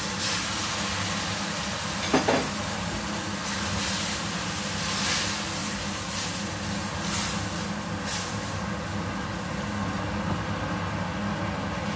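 Chopped chili spice paste sizzling in a wok as a liquid is poured in at the start and the mixture is stirred with a silicone spatula, the hiss swelling now and then. A sharp knock sounds about two seconds in, over a steady low hum.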